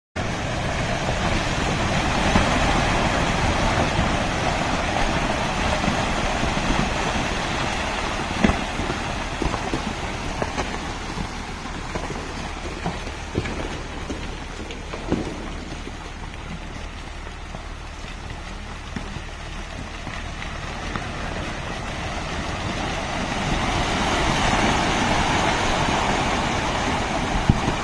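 Landslide: soil and rock pouring down a steep hillside, a steady rushing noise that eases off in the middle and swells again near the end, with scattered knocks of falling stones.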